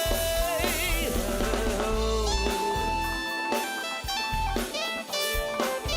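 Live R&B band playing an instrumental passage: a guitar line over drums, just after a held sung note fades out. The low bass drops out for a couple of seconds midway and comes back near the end.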